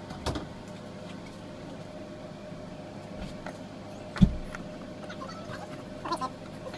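Workbench handling noises over a steady electrical hum: a knock near the start and a heavy thump a little past four seconds. Near the end come small clicks and a couple of brief whirs from a DeWalt 20V cordless drill being set against the charge controller to mount it.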